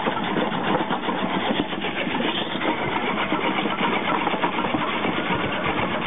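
Antique farm machinery running at work, with a steady, dense mechanical clatter and rattle.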